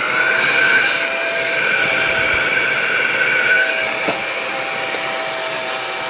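Small Larva-character mini desk vacuum cleaner running: a steady high-pitched motor whine over a hiss. One of its tones fades out a little past halfway.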